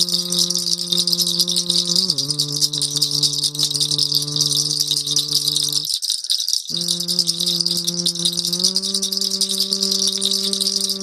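A shaman's rattle shaken fast and continuously, with a sustained low tone, sung or hummed, held underneath; the tone shifts pitch a few times and breaks off briefly about six seconds in.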